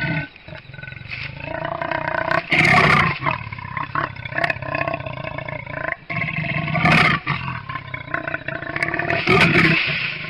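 Leopard growling at its own reflection in a mirror, in a run of rough vocalizations that swell into three louder outbursts, at about two and a half, seven and nine and a half seconds in.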